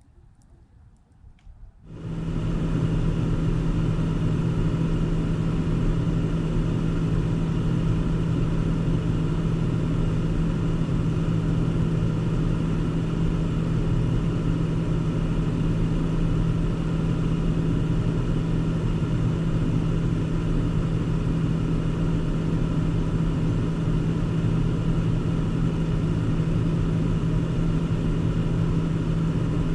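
A car running steadily: a constant engine hum with rumbling road noise, starting abruptly about two seconds in.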